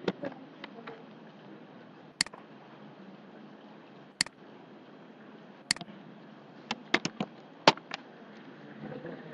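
Sharp single clicks of a computer mouse and keyboard, spaced a second or two apart, then a quick run of about five clicks near the end, over a steady low hiss.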